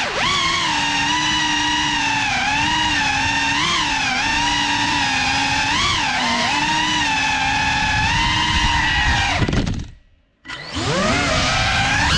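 GEPRC Cinelog 35 3.5-inch cinewhoop's brushless motors and props whining in flight, the pitch rising and falling with the throttle. About ten seconds in the whine falls away to almost nothing for about half a second, then spools back up sharply.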